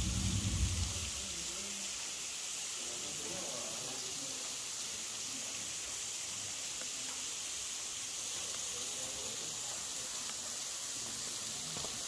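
Steady hiss of a thin waterfall, running low in a dry spell. A low rumble stops about a second in.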